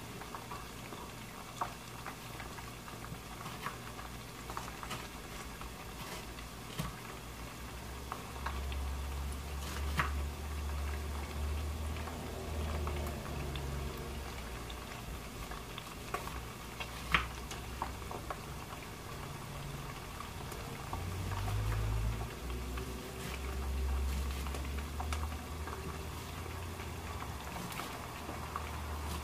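Hot oil sizzling steadily as chicken fries in a pot, with occasional sharp taps of a kitchen knife on a wooden cutting board as an onion is cut. A low rumble comes and goes under it.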